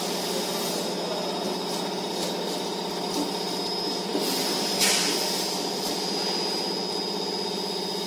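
Industrial microwave tunnel dryer for shrimp running: a steady machine hum with a thin high whine over it, and a short sharp noise about five seconds in.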